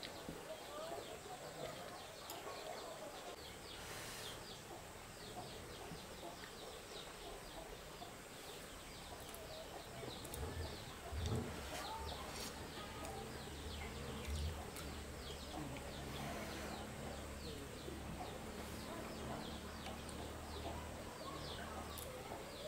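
Small birds chirping over and over, with chickens clucking. A low steady hum comes in about a third of the way through.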